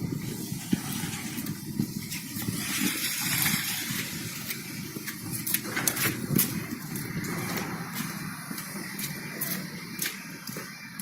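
City street sound heard while walking: a steady traffic rumble, with a vehicle passing by in a swelling and fading hiss about two to four seconds in, and scattered small clicks throughout.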